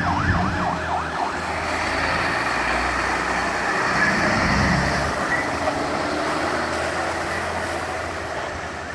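A fire engine pulls out of the station and drives past, its engine running with a steady rumble that fades slightly near the end. A fast siren yelp from a truck already on the road cuts off within the first second.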